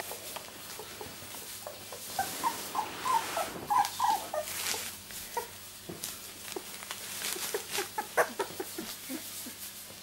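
Two-week-old miniature labradoodle puppies squeaking and whimpering, with a run of short high squeaks about two to four and a half seconds in and odd squeaks later. The plastic sheet under them crinkles and crackles as they crawl about.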